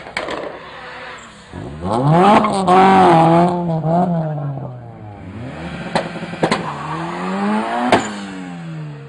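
Honda Civic hatchback's engine revving hard as the car is thrown through a turn. The revs climb steeply about a second and a half in, are held high and wavering for about two seconds, drop away, then climb again, with a few sharp cracks around six and eight seconds in.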